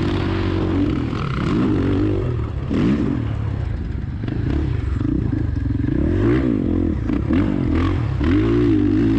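Husqvarna FE501's big single-cylinder four-stroke engine revving up and down repeatedly as the bike is ridden hard around a dirt motocross track, with clatter and knocks from the rough ground.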